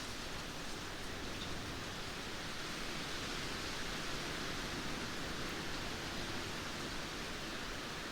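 Light rain falling, a steady, even hiss without distinct drops standing out.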